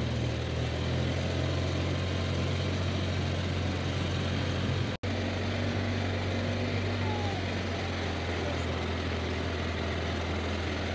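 Side-by-side UTV engine running at a steady low hum while driving along a trail. The sound cuts out for an instant about halfway through.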